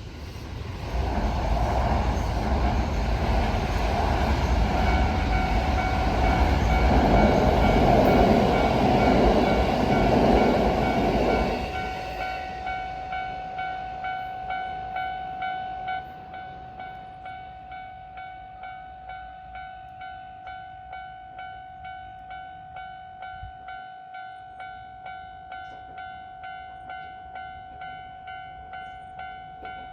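A train passes close by with loud rumbling running noise that cuts off about 12 seconds in. About 5 seconds in, a Japanese level-crossing warning bell starts its steady repeating electronic ring, about one and a half strokes a second, warning of an approaching train. It keeps ringing after the passing train has gone and gets quieter about 16 seconds in.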